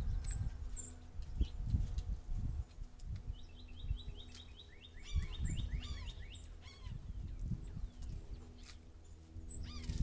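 Songbirds singing: a long run of quick down-slurred notes through the middle, with short high chirps scattered around it, over a low uneven rumble.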